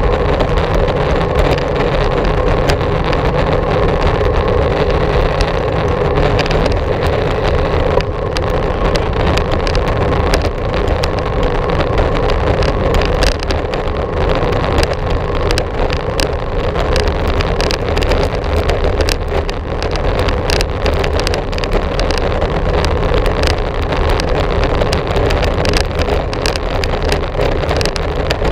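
Wind rushing over a GoPro Hero 4's microphone on a moving bicycle: a loud, steady rush with frequent small clicks and rattles.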